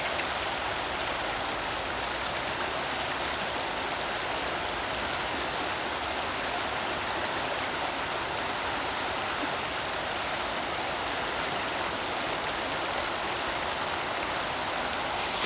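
River water rushing steadily over a rippling stretch, an even unbroken noise, with faint high ticks above it.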